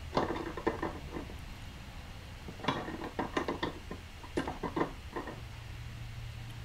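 Steel pliers jaws clicking and scraping on a rusty knurled metal stove-tank cap in three short bunches, as the cap is gripped and tightened down so that it stops spinning.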